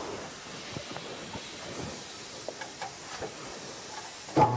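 Steady hiss of air with light knocks and clunks as a wide tire is worked on a tire-changer machine, ending in a loud clunk near the end.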